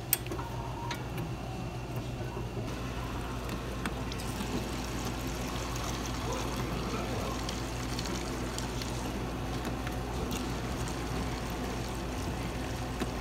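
Water pouring in a steady stream from a dispenser spout into a plastic tumbler of espresso and ice, over a steady low machine hum.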